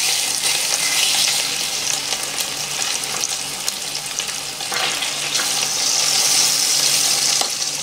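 Bacon rashers frying in oil in a stainless steel frying pan: a steady sizzle, with a few light clicks as a fork turns and lifts the rashers against the pan.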